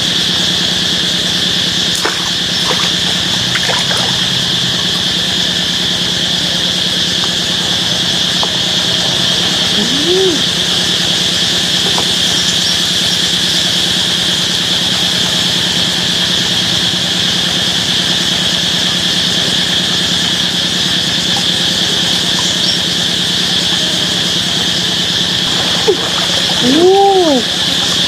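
Steady, unbroken insect drone of the rainforest, with a short rising-and-falling call about ten seconds in and another near the end.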